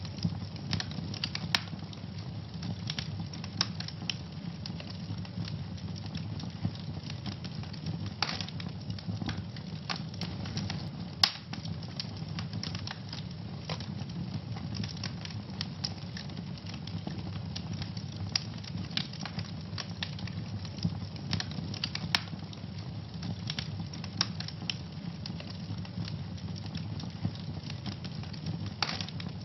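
Wood fire burning in a fireplace: a steady low rumble of the flames with constant irregular crackles and pops, a sharp louder pop about eleven seconds in.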